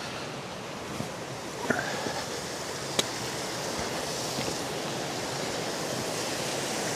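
Burbage Brook rushing steadily, running full after rain, with a few sharp knocks about one, two and three seconds in.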